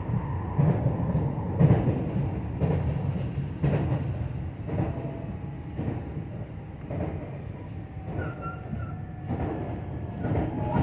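JR West 225 series electric multiple unit running on the line, a steady low rumble with knocks about once a second as the wheels pass rail joints. Short, wavering high squeals come in near the end.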